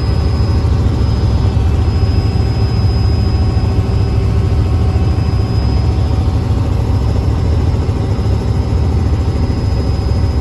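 Helicopter running: a loud, steady low drone with a thin, steady high whine over it.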